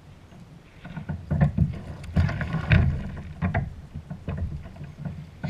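Irregular splashing and knocking around a plastic fishing kayak as a hooked fish is fought alongside and the landing net goes into the water, starting about a second in.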